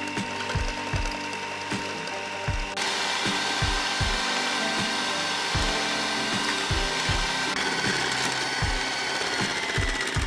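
Background music with a steady beat, over a steady mechanical noise that gets suddenly louder about three seconds in.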